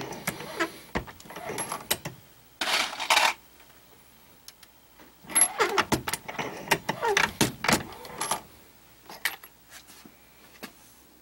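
Metallic clicks and clatter from working a Lee Classic Turret reloading press and handling 9mm cartridges. There is a short rasping rush about three seconds in and a dense run of clicks in the middle, then a few light clicks near the end.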